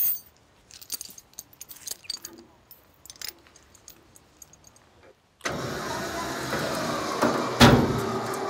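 Scattered light metal clinks of a chain being handled, then about five seconds in a winch motor starts and runs steadily, pulling a heavy walnut log onto a trailer, with one loud clunk near the end.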